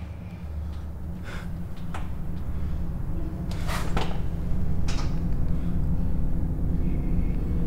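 A low rumbling drone from the film's sound design that swells steadily louder, with a few brief noisy swishes about one and a half, two, four and five seconds in.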